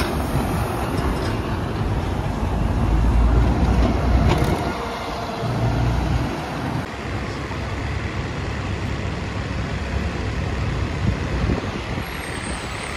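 Double-decker bus engines and city traffic: a deep engine rumble as a bus pulls away, loudest about three to four seconds in, then a steadier, lower traffic noise as another bus draws up close.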